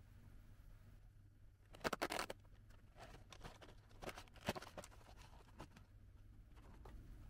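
Cardboard snack box being handled and its lid flap opened: a quick cluster of crisp cardboard clicks and crackles about two seconds in, then scattered lighter taps and clicks.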